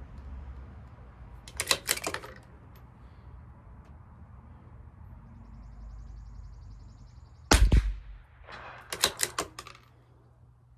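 CZ 457 bolt-action .22 LR rifle: a quick cluster of metallic clicks from the bolt near the start, a single shot about three-quarters of the way in, then the bolt cycled again with a run of clicks.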